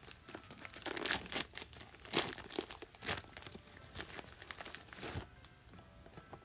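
Crinkling and crackling of something being handled, with dense irregular crackles that stop about five seconds in, over soft background music.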